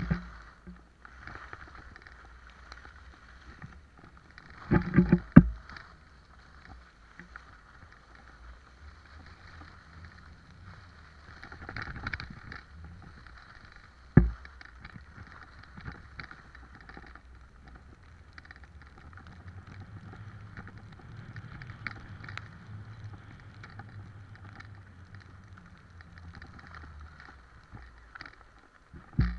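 Skis sliding on packed snow: a steady scraping hiss over a low rumble, broken by sharp knocks, a double one about five seconds in and a single one near the middle.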